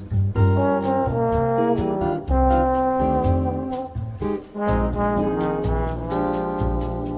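Background jazz music led by brass horns, with a walking bass line and a steady ride-cymbal beat.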